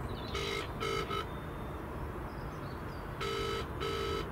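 Mobile phone on loudspeaker playing the British double-ring ringing tone as an outgoing call waits to be answered: two pairs of short rings, the second pair about three seconds after the first.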